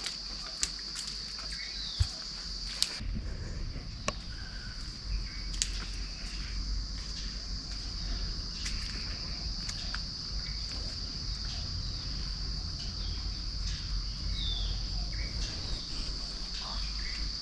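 Steady, high-pitched chorus of insects droning without a break. A few sharp clicks fall in the first few seconds, and a low rumble joins about three seconds in.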